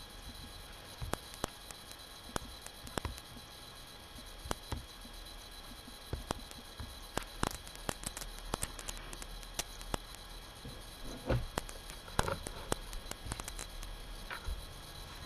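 Scattered faint clicks and taps over a steady hiss and low hum, with no speech or music.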